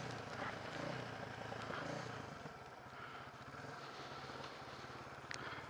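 Suzuki DR350SE's single-cylinder four-stroke engine running faintly at low revs, heard through a helmet-mounted mic.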